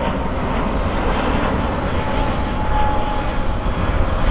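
Jet engines of an Airbus A320-family airliner climbing out just after takeoff: a steady, loud, low-heavy roar.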